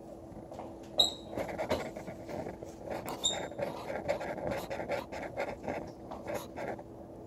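Dry-erase marker writing on a whiteboard in a run of short scratchy strokes, with two brief high squeaks about one and three seconds in.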